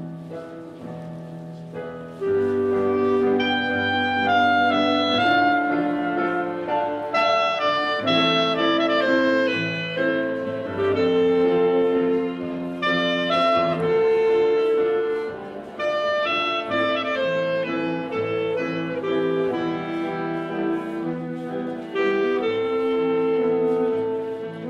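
Instrumental waltz played by a dance band for the last dance, a sustained melody over chordal accompaniment; it starts softly and fills out about two seconds in.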